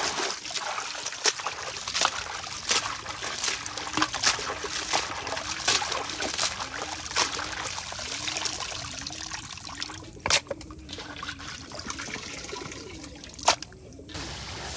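Water trickling and splashing, with many small clicks and knocks and a faint squeak that repeats about once a second. Two sharper knocks come near the end.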